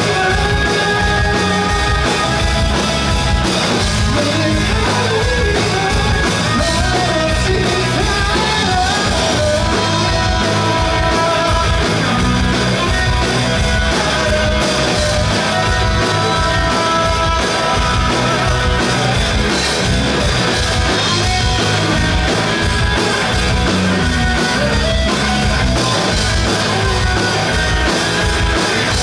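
Rock band playing live: electric guitars and a drum kit on a steady kick-drum beat, with singing.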